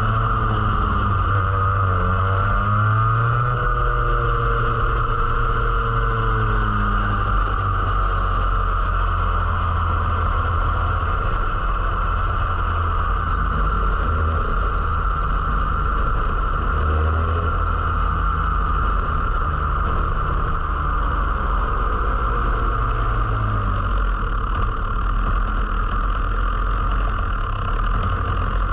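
Rotax Max 125cc two-stroke kart engine heard onboard, running at reduced speed with its pitch rising and falling gently as the race is red-flagged.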